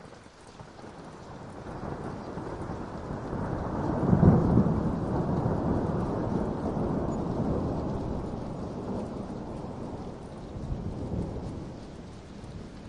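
Rolling thunder: a deep rumble that builds over about four seconds to a loud peak, then slowly dies away, swelling once more near the end.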